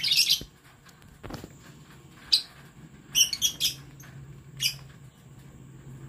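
Lovebirds giving short, high, sharp chirps: one at the start, one about two seconds in, a quick run of several a little after three seconds, and one more near the end.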